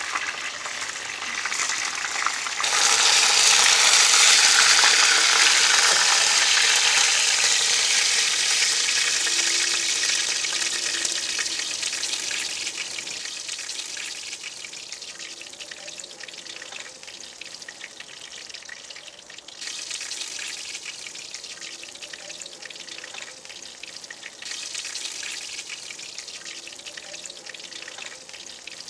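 Food sizzling as it fries in hot fat. The hiss swells sharply about two and a half seconds in, then gradually dies down.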